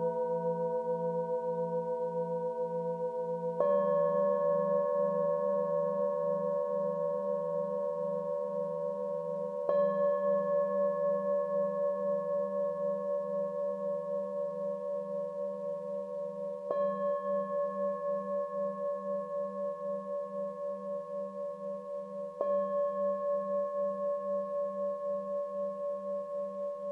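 Singing bowls struck with a mallet four times, about every six seconds, each strike adding to a bed of overlapping ringing tones that fade slowly with a steady wavering pulse.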